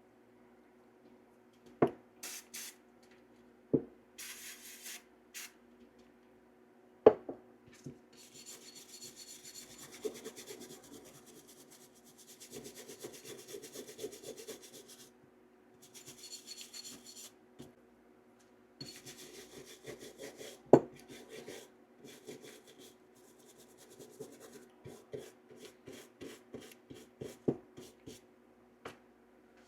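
Plastic brush scrubbing a steel 1911 pistol slide wet with CLP, in quick back-and-forth strokes that come in runs, to loosen oil, dirt and surface rust. Now and then there is a sharp knock as the metal parts are set down or handled, and this is the loudest sound. A faint steady hum runs underneath.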